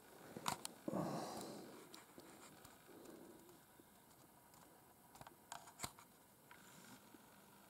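Quiet handling noise: a few sharp clicks, a soft thud about a second in with a short fading rumble, then more faint clicks around five to six seconds in.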